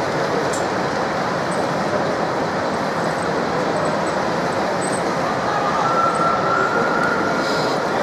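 Steady din of a busy exhibition hall. A thin whine comes in about five seconds in, rises slightly in pitch and fades near the end: the hydraulic pump of the radio-controlled Liebherr crawler loader as it raises its blade.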